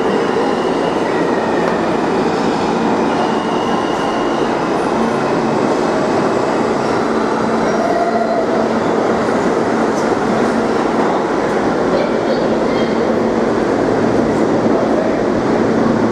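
New York City subway train on the R line running along a station platform, a loud, steady wheel-and-rail noise with no clear start or stop.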